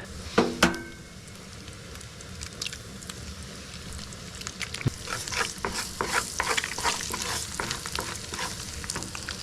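Eggs and bacon sizzling in a frying pan, with frequent sharp ticks and scrapes that thicken from about five seconds in.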